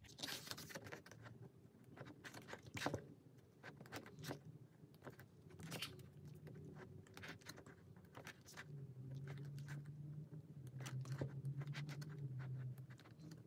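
Faint handling sounds of a K-pop album photobook: pages turning and paper rustling, with scattered soft taps and crinkles. A faint low hum comes in about two-thirds of the way through.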